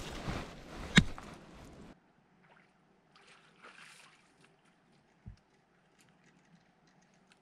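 Wind and handling noise on the camera's microphone as the camera is moved and set down on the gravel, with a sharp knock about a second in. After about two seconds it drops to near silence, with only a few faint ticks and one low thump.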